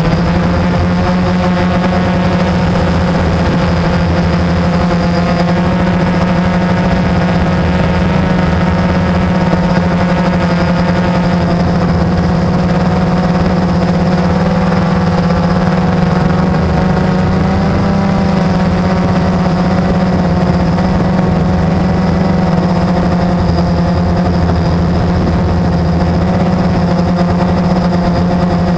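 Blade 350 quadcopter's electric motors and propellers buzzing steadily in flight, the pitch wavering slightly as the throttle changes.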